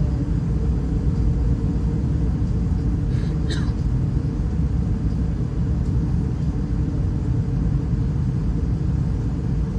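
Steady low rumble of an Airbus A320-211 in flight on approach, its CFM56 engines and airflow. A short, faint falling squeak comes about three and a half seconds in.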